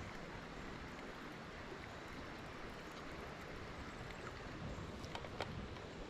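Shallow creek water running steadily, with a few faint clicks near the end.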